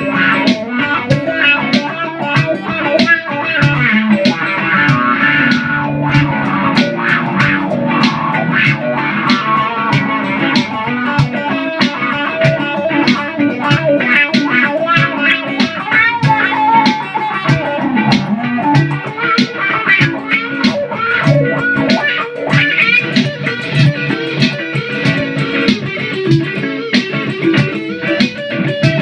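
Gibson Les Paul electric guitar played freestyle, a continuous stream of quickly picked notes and short phrases.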